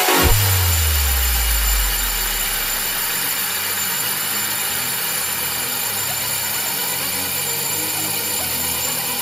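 Manual metal lathe running, its cutting tool facing a spinning cast-iron brake disc to resurface it: a steady whir with a hiss of cutting. A deep tone falls in pitch and fades out over the first two seconds.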